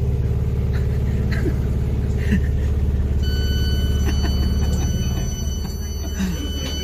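Low, steady rumble of a moving passenger train heard from inside the carriage. A steady high-pitched tone joins it about three seconds in.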